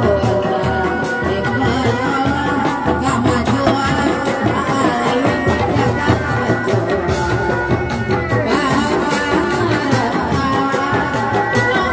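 A reak ensemble of dogdog frame drums and a large barrel drum beats a steady, driving rhythm, with a wavering melody line above the drumming.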